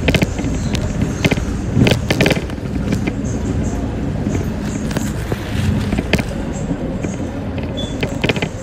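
City bus driving, heard from inside: a steady low rumble of engine and road noise, with frequent clicks and rattles from the bus's interior fittings.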